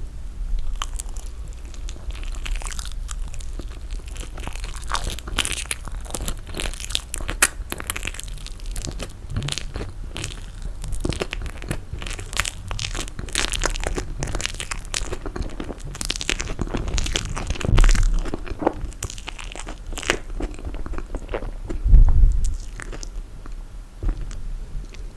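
Close-miked eating sounds: biting and chewing toasted marshmallow in a dense run of short clicks and crunches, with two louder low thumps in the second half.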